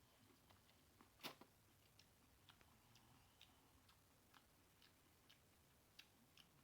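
Very faint eating sounds: scattered small wet clicks of lip smacking and chewing, one a little louder about a second in.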